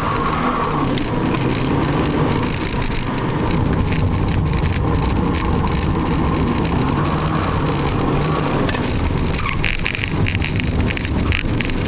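Renault Clio's engine heard from inside the cabin, its pitch rising and falling as the car accelerates and slows through tight turns during an AutoSolo run.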